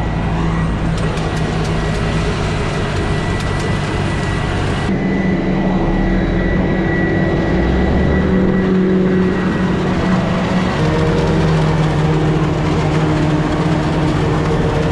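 New Holland self-propelled forage harvester chopping corn for silage, its engine and cutterhead running steadily under load together with the engine of the truck driving alongside. A thin high whine sits over the machinery for the first few seconds.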